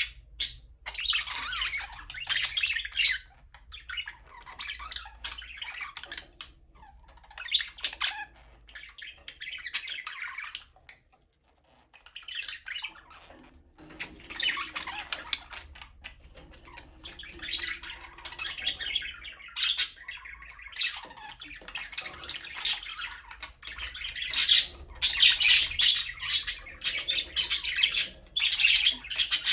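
Budgerigars chirping and chattering in quick runs of high squawks and warbles. There is a brief pause a little before halfway, and the chatter grows busier and louder toward the end.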